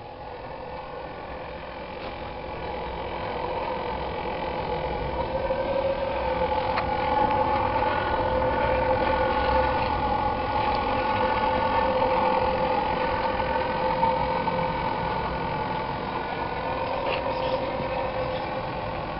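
Small engine running steadily on wood gas from a homemade F.E.M.A.-type downdraft gasifier, with a droning whine. It grows louder over the first several seconds, then holds steady, with wind rumbling on the microphone underneath.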